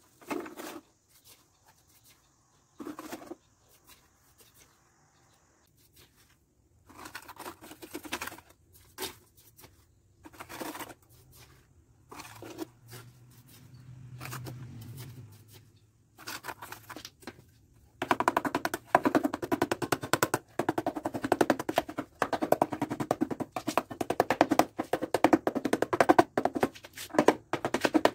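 A small metal spoon scooping wet cement mortar, scraping and dropping it into the gap of a plastic-pot mould in short separate scrapes and knocks. Past the middle a loud, fast, continuous rattle of knocks starts and takes over.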